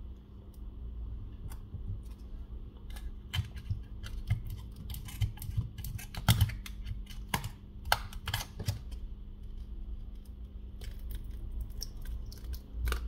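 Irregular sharp clicks and crackles of a plastic opening pick and fingers working around the edge of a Xiaomi Mi 10's glass back cover, as it comes away from its adhesive. The clicks bunch together in the middle and again near the end.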